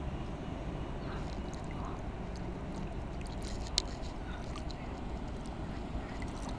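Wind rumbling on the microphone over faint lapping and splashing of water stirred by a hand at the bank's edge, with a few small ticks and one sharp click just under four seconds in.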